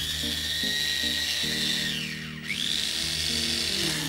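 Electric mini chopper's motor whining as it grinds soaked glutinous rice, lemongrass, garlic and red chili into a paste. It runs in two pulses: it spins up, stops a little over two seconds in, then spins up again a moment later.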